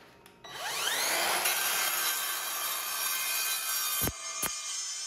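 Evolution R185CMS-Li 18 V cordless sliding mitre saw with a multi-purpose blade spinning up with a rising whine, then cutting steadily through a clamped workpiece. Two short knocks come near the end.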